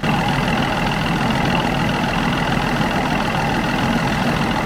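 Peugeot 208's petrol engine idling steadily, left running while the cooling system is filled with coolant.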